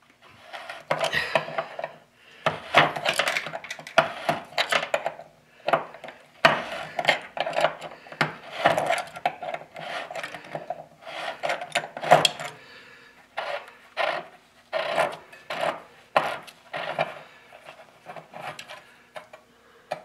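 Upper heating element of an electric water heater being unscrewed by hand and drawn out of its tank port: repeated scraping and rubbing strokes as the threads turn, with a gritty rasp from the scale-crusted element.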